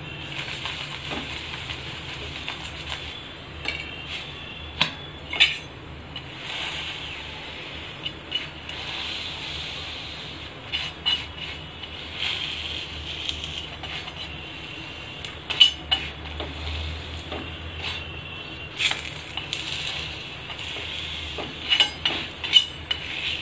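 Steel spatula scraping and tapping on an iron tawa while a thepla is pressed and turned in oil, over a steady sizzle of the oil frying. Sharp metal clicks come at irregular moments, the loudest about a fifth of the way in, a little past halfway, and twice near the end.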